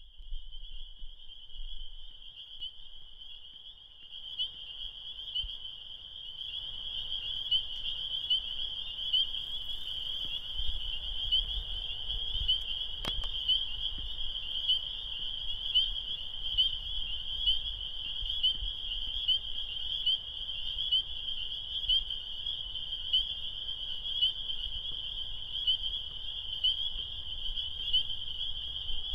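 Chorus of spring peepers (Pseudacris crucifer): many high, shrill peeps overlapping into a continuous chorus, growing louder about six seconds in. A single sharp click about halfway through.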